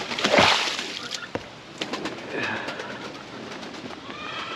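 A short splash of water being poured out onto the ground, about a second long, followed by pigeons cooing and a few other bird calls.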